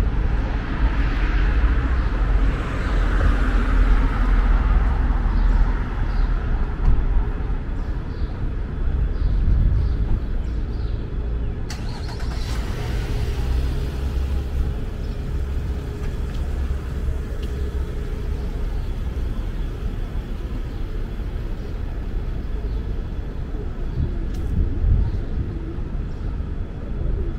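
City street traffic: vehicles passing close by, louder over the first several seconds, then settling into a steady low traffic rumble.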